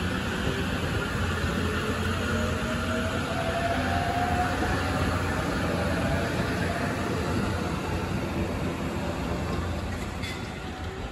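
E257 series 5500-subseries electric train running past: a steady rumble and rush of wheels on rails, with a faint rising whine about a third of the way in, easing off near the end as the last car goes by.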